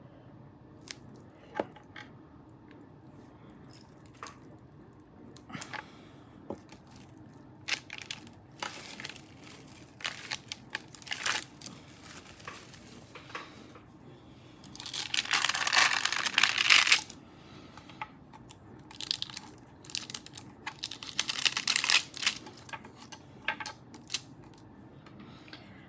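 Plastic sheeting and paper under a polymer clay slab crinkling and rustling as hands handle them. Small clicks and taps are scattered throughout, with two longer spells of crinkling of about two seconds each past the middle.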